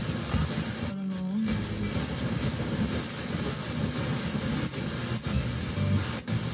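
Bass-heavy music from a vintage Toshiba SA-3500 stereo receiver's radio, played through a small speaker. There is a brief dip with a gliding tone about a second in.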